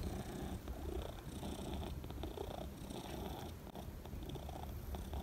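Long-haired domestic cat purring steadily.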